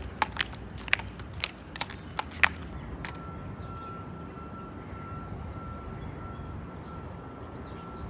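Flip-flops slapping on paving stones at walking pace, a sharp step roughly every half second. About three seconds in, the steps stop abruptly and a steady low outdoor hum with a faint steady high tone remains.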